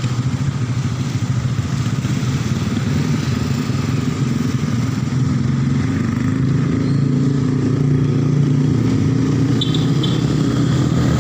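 A small engine running steadily at a constant speed, a little louder from about five seconds in.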